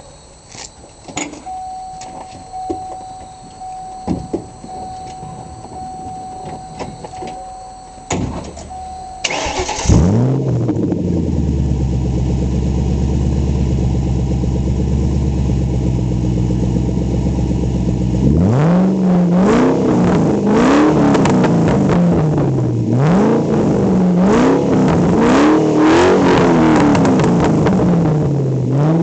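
1999 Panoz AIV Roadster's Ford SVT Cobra V8 being started: clicks and a steady tone, then the starter cranks and the engine catches with a flare about ten seconds in. It settles to a steady idle, then from about halfway on it is revved repeatedly, each blip rising and falling back, about one every two seconds.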